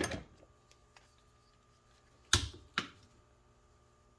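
Metal hand tools, ratchets, clacking as they are picked up and set down in a toolbox drawer: a click at the start, a louder clack a little over two seconds in, then a lighter one half a second later.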